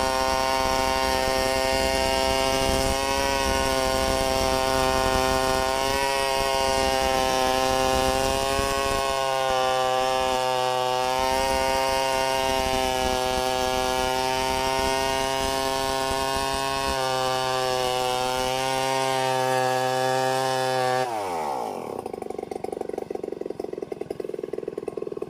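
Two-stroke chainsaw held at high revs, ripping a log lengthwise into boards. Its pitch wavers slightly as the cut goes on. Near the end the throttle is let off and the engine falls quickly to idle.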